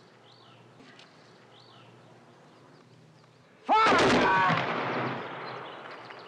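A firing-squad volley of rifles, about three and a half seconds in: one sudden loud crack that dies away in a long echo over the next few seconds.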